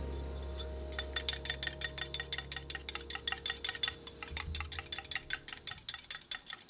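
A small utensil rapidly beating or stirring in a tiny bowl, about eight light, bright clinks a second starting about a second in.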